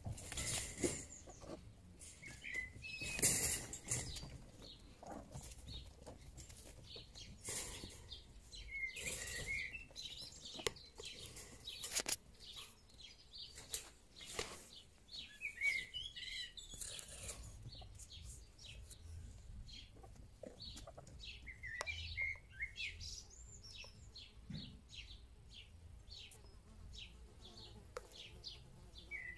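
Rabbits scuffling and scrabbling on dirt and wire mesh as they chase and hop, in quick bursts of paw-scratching and light knocks. A few short bird chirps come now and then.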